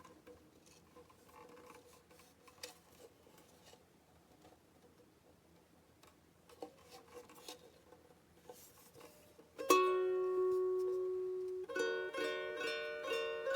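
Soprano ukulele: faint, scattered taps and soft notes, then a loud chord strummed about ten seconds in and left to ring, followed by a run of rhythmic strums near the end.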